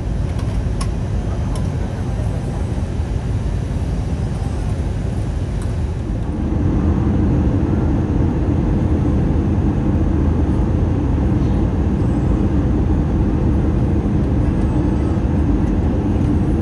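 Steady rumble and air noise inside the cabin of an Airbus A319 airliner in flight, descending for landing. The rumble grows louder about six seconds in and then holds steady.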